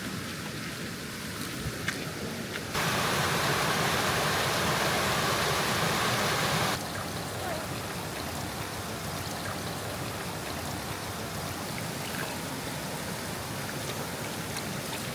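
Mountain stream running steadily, a continuous rush of water. A few seconds in it jumps abruptly louder for about four seconds, then drops back just as suddenly.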